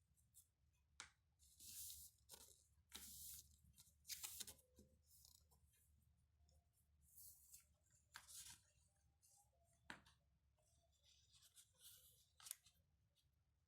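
Faint handling of paper: a dozen short rustling, crinkling bursts with a few sharp clicks, as paper is folded and cut.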